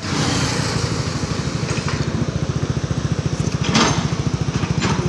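An engine running steadily with a fast, even throb, with a few short noisy bursts over it, the loudest just before four seconds in.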